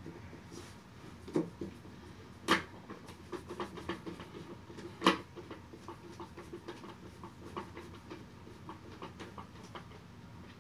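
Flat-pack desk panels being handled and fitted together by hand: two sharp knocks about two and a half and five seconds in, among many small clicks and ticks of parts and fittings being worked.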